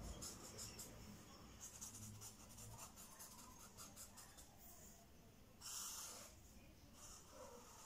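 Faint fine-tip pen scratching on paper in many short, quick strokes as a line is drawn. About six seconds in there is one longer, louder rasp across the paper.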